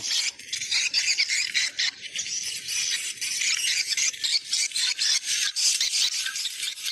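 Recorded swiftlet 'location check' lure call played through a loudspeaker: a dense, continuous chatter of rapid high-pitched chirps and ticks.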